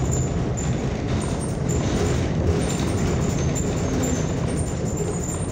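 Steady running noise inside a New Flyer XN40 natural-gas city bus under way: engine, drivetrain and road noise from the moving bus.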